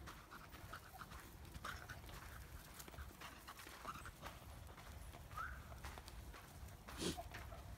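Footsteps of a walker and a small dog on a path strewn with dry fallen leaves: irregular soft crunches and scuffs, with one louder knock about seven seconds in.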